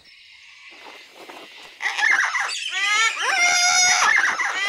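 A flock of cartoon sulphur-crested cockatoos squawking and chattering together, many overlapping calls with quick rising and falling sweeps, starting about two seconds in.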